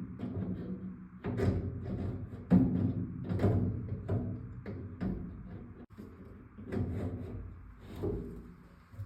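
An irregular series of knocks and thuds against a cabinet, each with a short, low, resonant ring, as it is struck and worked over to distress it.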